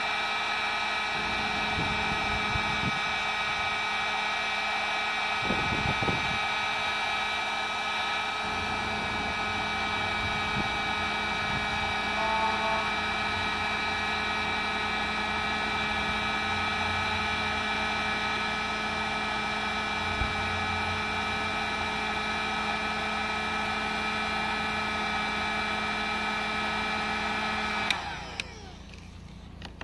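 Electric heat gun running steadily, its fan motor whining with a low hum underneath. It cuts off near the end and the sound drops away.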